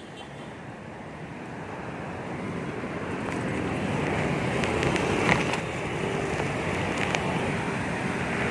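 Road traffic noise and wind rushing on the microphone of a moving bicycle, growing steadily louder, with a sharp click about five seconds in.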